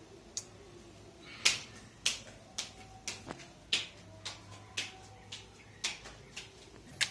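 Playing cards being dealt one at a time, each card landing with a sharp snap, about two a second.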